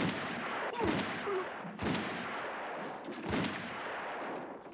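Four revolver shots in quick succession, each with a long ringing tail; the fourth comes after a slightly longer pause.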